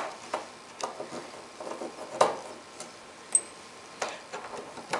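Screwdriver working the screws out of a rack mixer's sheet-metal bottom cover: irregular light metallic clicks and ticks as the bit seats and the screws turn loose.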